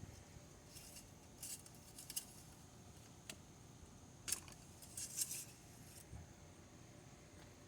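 A few faint, sharp clicks and light rattles of small hard objects being handled, in ones and short clusters, over a quiet background.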